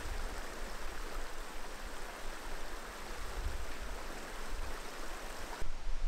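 Small stream trickling and splashing over rocks, a steady rush of water that drops away near the end.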